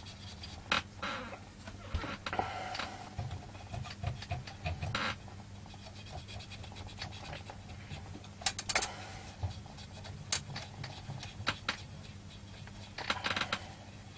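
Cotton bud wetted with isopropyl alcohol scrubbing leaked capacitor electrolyte off a circuit board: irregular scratchy rubbing strokes, in several louder spells, over a faint steady hum.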